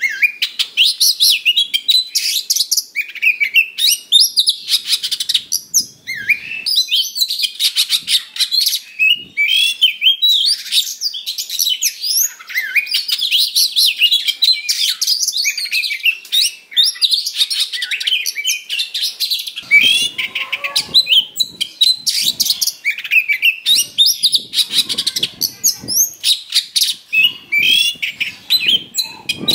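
Oriental magpie-robin singing a loud, continuous, fast-paced song of varied whistles, trills and chattering notes, full of mimicked phrases, with harsher, rasping notes about two-thirds of the way through and again near the end.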